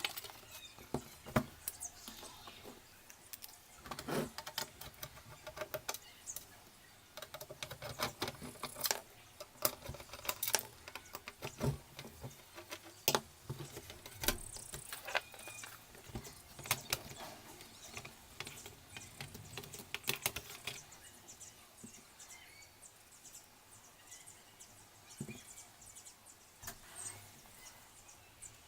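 Irregular clicks, taps and knocks of hands working on a digital video recorder's casing and hard drive, frequent for the first twenty seconds or so, then sparser.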